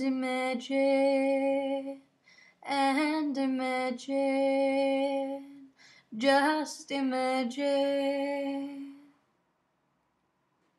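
A woman singing unaccompanied in three phrases of long, held notes, stopping about nine seconds in.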